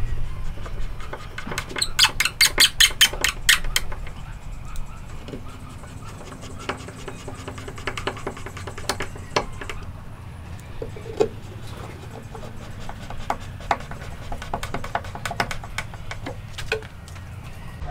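Small hand tool working a wooden cabinet frame: a quick run of about eight sharp clicks a couple of seconds in, then scattered light ticks and scrapes.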